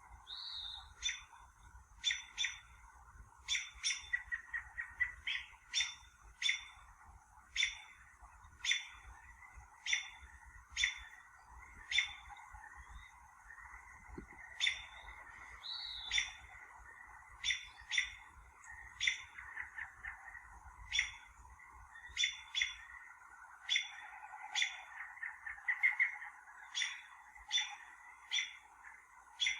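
Birds chirping outdoors: short, sharp chip notes repeated irregularly, roughly one a second, with an occasional brief whistle, over a steady softer background.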